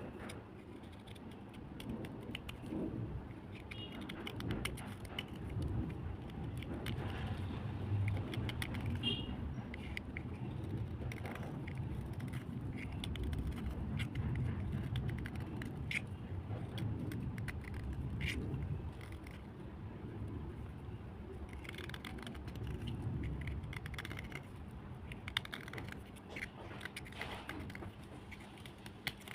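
Close-up crunching of black slate cubes that were soaked overnight, a dense run of small crackles and clicks over a low rumble.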